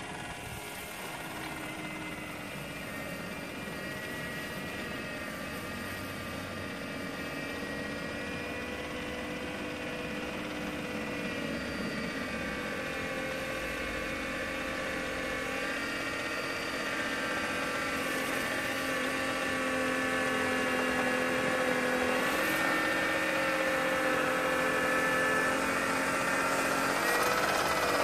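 A 3D-printed remote-control miniature snow blower running through snow, its motors giving a steady whine made of several tones whose pitch shifts a little now and then. It grows steadily louder as the machine comes closer.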